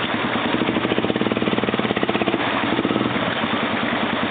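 ATV engine running with a fast, even chugging from the exhaust, strongest for a second or two after about a second in.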